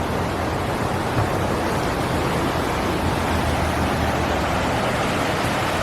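Waterfall, its falling water making a steady, even rushing noise.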